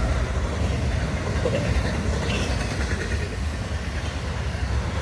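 Florida East Coast Railway train rolling past, a steady low rumble from the wheels on the rails.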